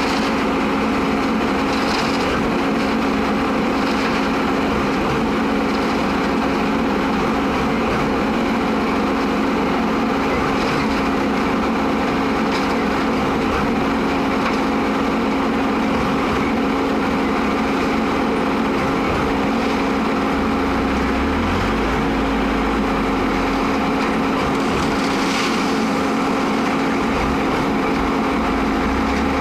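Diesel engine of a concrete mixer pump running steadily with a constant hum, with brief faint hisses every few seconds.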